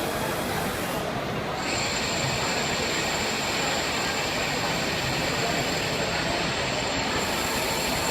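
Swiss-type CNC lathe running with a thread whirling attachment cutting a bone screw: a steady machining noise, joined about two seconds in by a thin, steady high whine.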